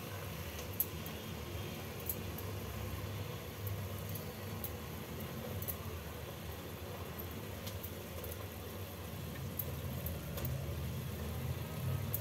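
Steady low kitchen hum, with faint scattered crackles from tomato gravy cooking in an aluminium pot as raw mutton kofta balls are dropped in by hand.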